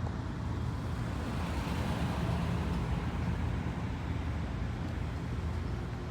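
Steady road traffic noise with a low rumble, swelling as a vehicle passes about two seconds in.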